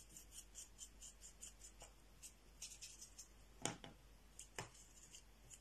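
Faint, scratchy strokes of a paintbrush dabbing metallic acrylic paint onto a textured canvas, with two light taps past the middle.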